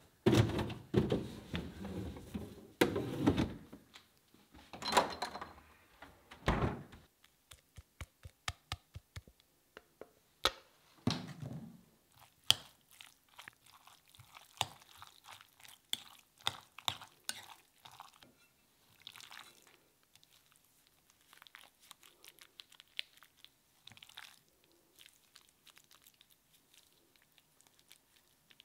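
Kitchen handling sounds: paper rustling and thumps as a wooden box is set into a fridge, then a spoon clinking against a glass bowl while diced raw fish is mixed, then soft wet squelching as the fish is pressed into a metal mould by hand.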